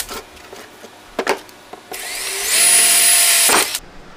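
Cordless drill boring a hole through 3-inch PVC pipe: the motor winds up over about half a second, runs steady for about a second and a half, and stops shortly before the end. A couple of light knocks come about a second in.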